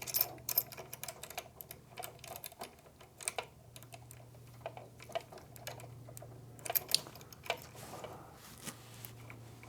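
Scattered light clicks and small knocks of hands working a rivet test sample loose from a pull-test rig, over a steady low hum.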